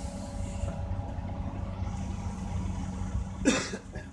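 Heavy diesel engines of an excavator and a dump truck running steadily with a low rumble. There is one sudden loud bang about three and a half seconds in, after which the rumble drops away.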